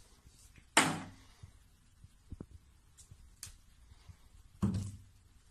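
A plastic bottle pushed off a bathroom shelf lands with a loud thud and clatter about a second in. A second heavy knock follows about four and a half seconds in, with a few faint ticks between them.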